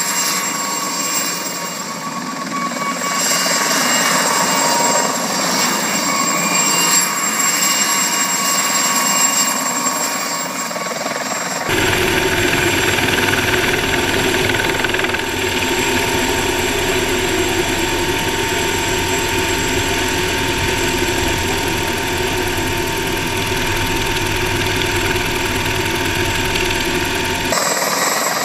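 Mosquito ultralight helicopter's engine and rotor running steadily while it hovers, heard from beside it. About twelve seconds in the sound cuts to the cockpit in flight, with much more low engine drone and steady tones, and cuts back to the hover shortly before the end.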